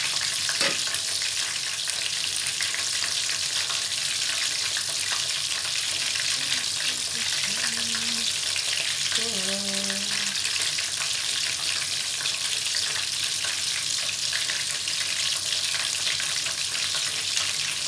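Flour-coated chicken pieces shallow-frying in oil in a frying pan: a steady sizzle with fine crackling.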